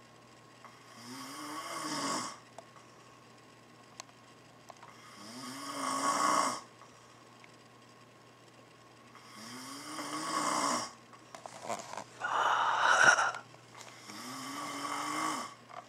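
A man snoring in his sleep: four drawn-out snores, each swelling and then cutting off, about four seconds apart, with a shorter, louder snore between the third and fourth. A faint steady hum runs underneath.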